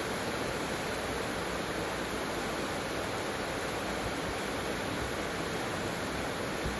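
Heavy tropical rain pouring down in a steady, even hiss.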